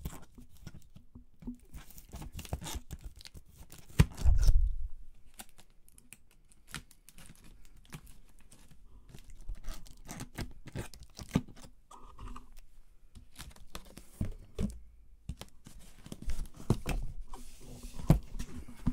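Flat-blade screwdriver prying metal staples out of a cardboard box: scraping, clicks and cardboard tearing, with a heavy thump about four seconds in.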